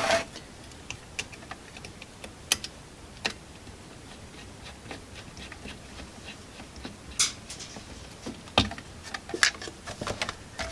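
Sparse small clicks and taps of a screwdriver and small screws against the viewfinder's metal chassis and plastic parts as its screws are put back in, with a brief scrape about seven seconds in and a quicker run of clicks near the end.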